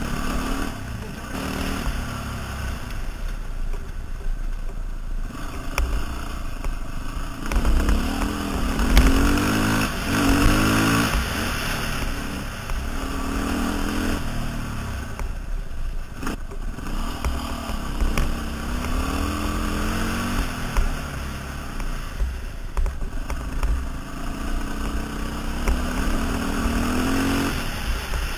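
Quad bike (ATV) engine running under a rider on a dirt road, its pitch rising and falling repeatedly as the throttle is worked, over a steady low wind rumble on the microphone. A single sharp knock sounds about sixteen seconds in.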